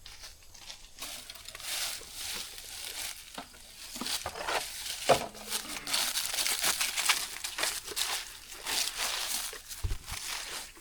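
Irregular crunching and rustling of dry leaves and brush, with scattered sharp crackles.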